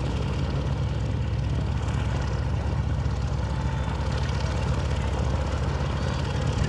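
Propeller engines of two vintage light aircraft, one of them a radial, idling as the planes taxi. They make a steady, low, even drone.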